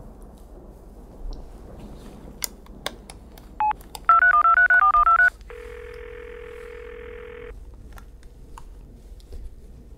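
A phone being dialed: a few soft clicks, one touch-tone beep, then a quick run of about ten touch-tone beeps. Then a steady two-second ringback tone: the call is ringing through.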